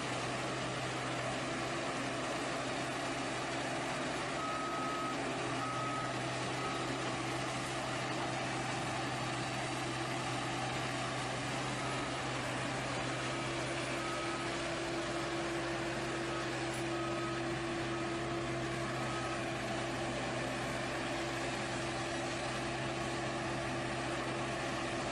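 Heavy construction machine running steadily, with a reversing alarm giving short high beeps on and off through the middle of the clip.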